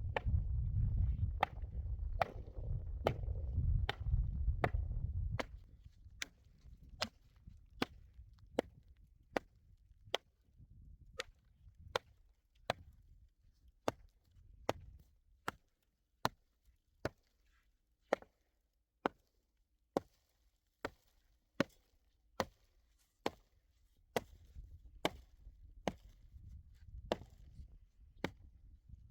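Steady chopping: sharp single strikes, a little more than one a second, with a low rumble under the first five seconds.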